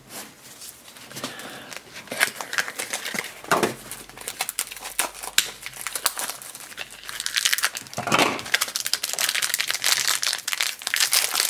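Handling of a small plastic toy lunchbox with scattered clicks and rustles, then a crinkly plastic blind bag being pulled and torn open, with dense crinkling from about eight seconds in.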